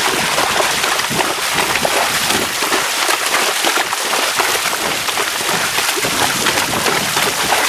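Horses wading through shallow floodwater, their hooves splashing and sloshing steadily.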